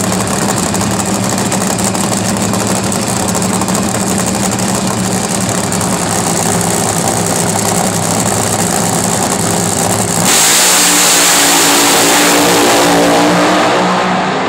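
Two drag-racing cars idling steadily at the start line, then launching about ten seconds in with a sudden loud blast of full-throttle engines, rising in pitch as they accelerate away and fading near the end.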